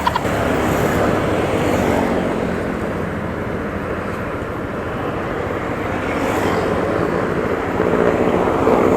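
Motor vehicle engine and road traffic running steadily, a dense rumble that dips a little in the middle and swells again near the end.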